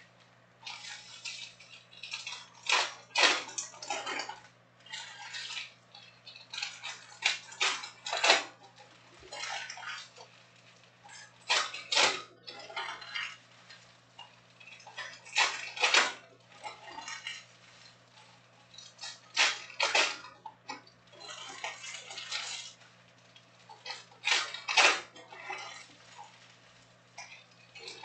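Glossy trading cards being handled: sorted through in the hands and set down onto stacks on a table, in irregular bursts of sharp clicks and short rustles every few seconds.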